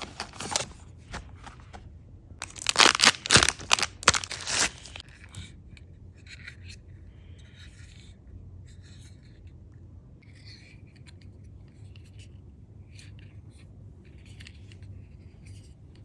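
Blind-box toy packaging torn open by hand. A loud burst of tearing and crinkling comes about three seconds in, then soft, scattered rustling as the package is handled.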